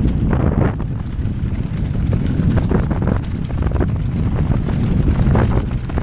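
Wind buffeting the microphone of a mountain bike rider's camera during a trail descent, with the bike rattling and clattering over rough ground in frequent short knocks.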